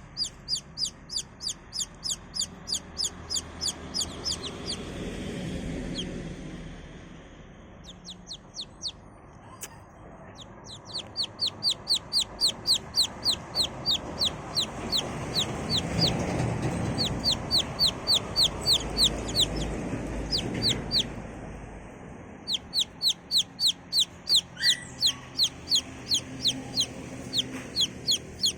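Baby chick peeping: a steady series of short, high, downward-sliding peeps, about three a second, in several runs with brief pauses between them. A softer, lower sound underneath swells in the middle.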